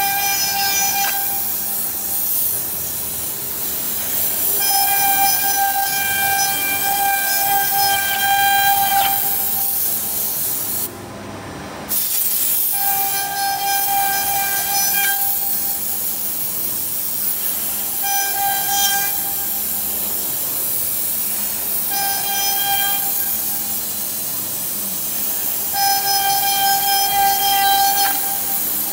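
CNC router spindle cutting through a wooden board, with a steady hiss of compressed air blowing the chips out of the cut. A high whine with overtones rises out of the noise in stretches of one to four seconds, about six times. The hiss cuts out for about a second a little over a third of the way in.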